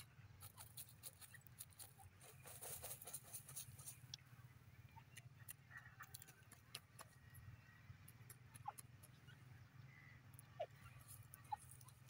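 Faint scratching and rustling of dry soil and feathers as a grey francolin dust-bathes, busiest in the first few seconds, over a steady low hum. A few short faint chirps come near the end.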